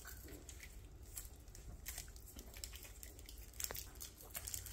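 Chewing and biting into a chocolate bar held in its plastic wrapper, with faint wrapper crinkling and scattered small clicks; one sharper click comes about three and a half seconds in.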